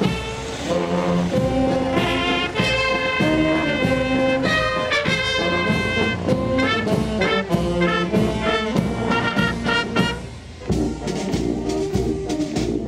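Brass band playing, with trumpets and trombones on held notes. Sharp drum strokes come in near the end.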